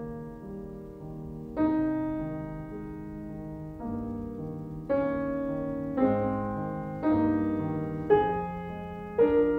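Slow solo piano music: chords struck about once a second, each left to ring and fade before the next.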